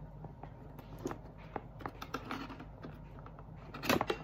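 Fingernails tapping and scratching on a cardboard box, picking at the clear tape seal on its top flap, in small scattered clicks, with a louder scrape near the end.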